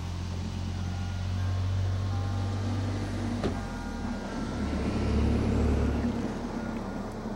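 A low, steady engine hum, as of a motor vehicle running, louder around five to six seconds in, with a single sharp knock about three and a half seconds in.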